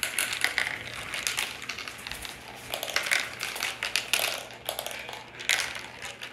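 Marbles rolling and rattling down a plastic marble run, a dense clatter of clicks against the plastic track and funnel, with louder clusters every second or so.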